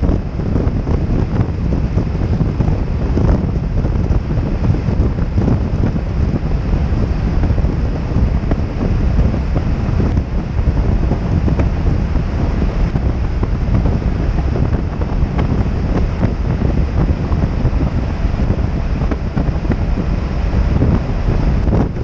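Wind buffeting the microphone of a camera on a motorcycle riding at road speed: a steady, low rumbling rush.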